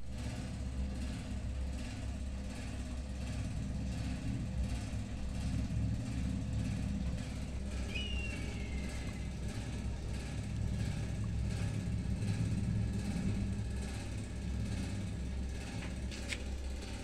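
A steady low mechanical rumble, with a single short high falling squeak about eight seconds in and a faint click near the end.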